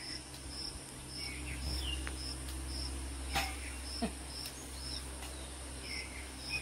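Cricket chirping in short, high, evenly spaced pulses about twice a second, with a couple of sharp clicks about halfway through.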